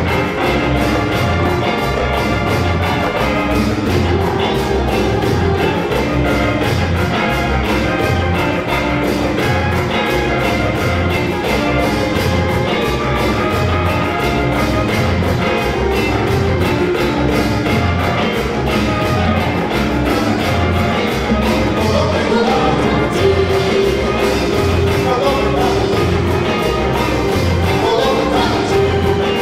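Live afrobeat band playing a steady groove: a repeating bass line under congas, timbales and other hand percussion, with a long held note entering in the middle range about three-quarters of the way through.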